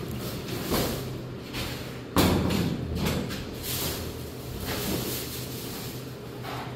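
A plastic shopping bag rustling in short bursts as light bulbs are handled and taken out of it, with a sharp thump about two seconds in, the loudest sound.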